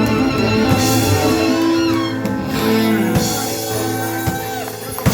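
Live band music with guitar and drum kit, held chords ringing on as the song closes.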